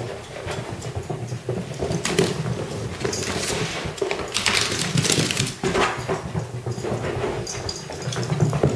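A Bengal cat and a Corgi scampering around a room, with a steady run of quick pattering and clicking from paws and claws on hardwood floor and rugs, and scuffing as the rugs are shoved across the floor.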